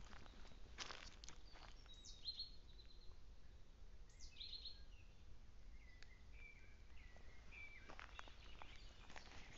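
Faint calls of small songbirds in woodland: a few short chirps and a run of short whistled notes. A few footsteps crackle on the dry forest floor.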